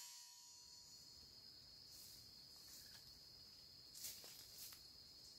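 Near silence: a faint, steady, high-pitched insect call, with a few faint rustles about four seconds in.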